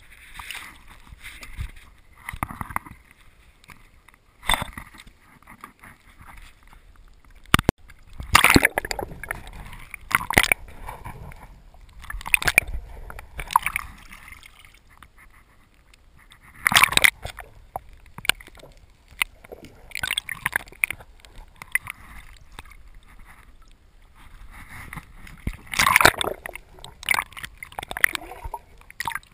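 Water sloshing and gurgling around a camera's waterproof housing held underwater, coming in irregular muffled surges, with one sharp knock about eight seconds in.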